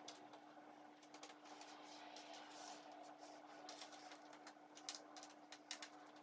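Faint, irregular light clicks and taps of cardboard jigsaw puzzle pieces being picked up, handled and set down on a tabletop, over a steady low hum.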